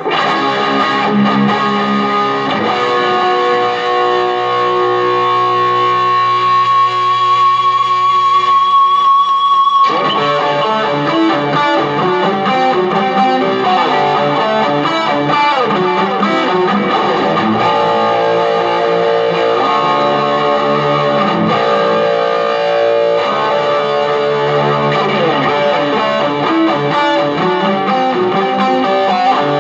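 Electric guitar played through a small Marshall MG15 combo amp: for about ten seconds chords and notes are held and left to ring, ending on a long sustained high note, then the playing turns to busier picked lines with quick note changes.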